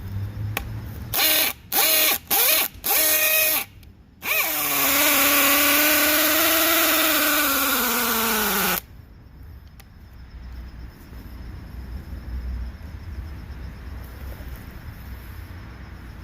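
DeWalt DCD996 cordless hammer drill boring a 1-inch spade bit into oak: a few short trigger bursts, then one long run of about four seconds whose motor pitch sinks steadily as it bogs down under the load, stopping suddenly.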